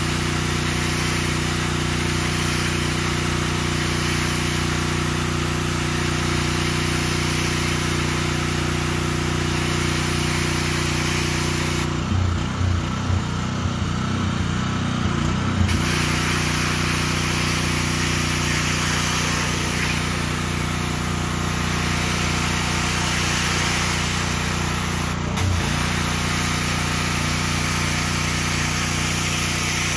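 Pressure washer engine running steadily under the hiss of the high-pressure water jet blasting concrete pavers. For a few seconds past the middle the spray hiss drops out and the engine note goes uneven, then the spray resumes.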